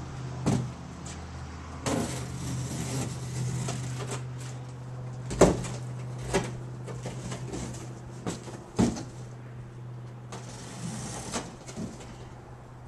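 Large sections of a cut corrugated cardboard box being handled: panels scraping and sliding against each other and the concrete floor, with several knocks and thumps as they are stood up and set down, the loudest about five and a half seconds in. A steady low hum runs underneath.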